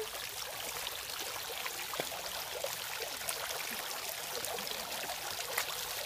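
Water falling steadily from the tiers of a garden fountain into its basin, with small splashes from a dachshund swimming in the water.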